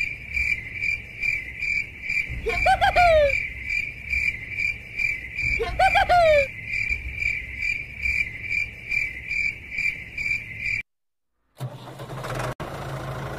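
Insect chirping steadily, about two to three chirps a second, with two falling whistle-like calls about a third and halfway in. It breaks off shortly before the end, and after a moment of silence a low steady hum starts.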